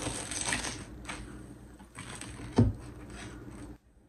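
Chef's knife cutting through an extra-crispy, butter-fried quesadilla, the tortilla crust and crisped cheese crunching and crackling. A single loud knock comes about two and a half seconds in, as the blade meets the wooden cutting board. The crunching stops suddenly near the end.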